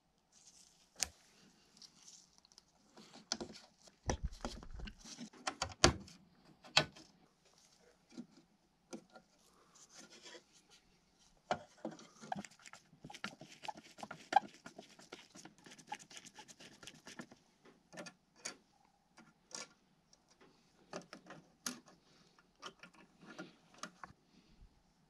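Small clicks, taps and light rattles of 1/18 scale diecast model parts being handled and fitted together by hand, with a few louder knocks about four to six seconds in.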